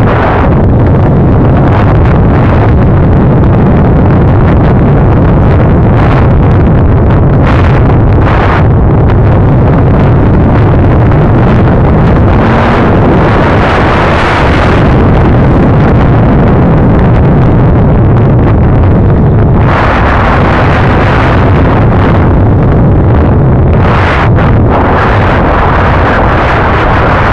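Heavy wind buffeting on the microphone during a fast ride down a loose gravel trail, with the steady rumble and rattle of tyres over stones. The hiss brightens and swells a few times, around halfway and again in the last third.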